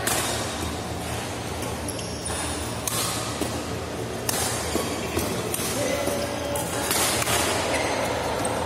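Badminton rackets striking the shuttlecock in a doubles rally: a handful of sharp hits a second or more apart, echoing in a large hall.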